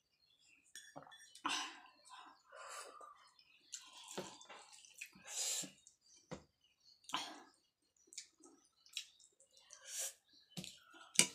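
Liquid poured from a small steel bowl onto rice, then a hand mixing the rice on a steel plate: irregular wet squishing and scraping, with a few sharp clinks against the metal.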